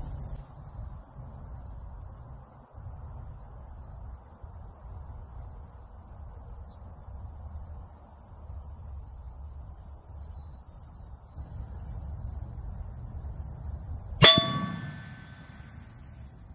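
.30-30 rifle bullet, fired from a Henry lever action at 125 yards, striking a steel plate target: one sharp crack about 14 seconds in, then the steel rings with several clear tones that fade within about a second.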